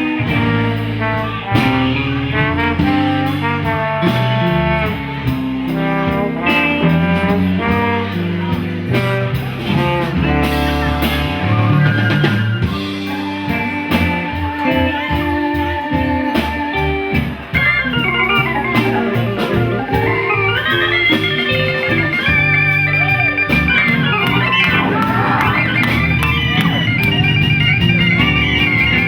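A live band playing a blues-jazz number with horns, organ and drums; near the middle a wavering, bending lead line comes in over the band.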